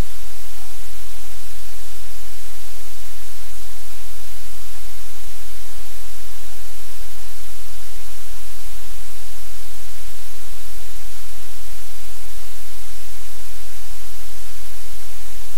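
Constant loud static hiss with a low hum underneath, unchanging throughout; no puppy sounds or other events stand out above it.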